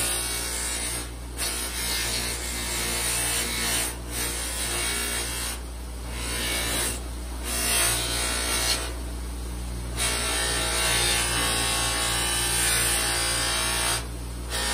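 Bench buffer's motor running steadily while a stabilized-wood knife handle is pressed against the spinning buffing wheel, giving a hissing rub; the rub drops away briefly several times as the handle is lifted off and repositioned, leaving the motor hum.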